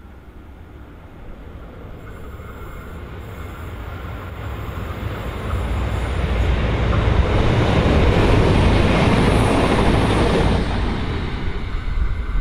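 V/Line VLocity diesel multiple unit approaching and passing: its engines and wheels on the rails grow louder over the first seven seconds and are loudest for a few seconds. About ten and a half seconds in, the higher part of the sound cuts away as the train goes by, leaving a low rumble.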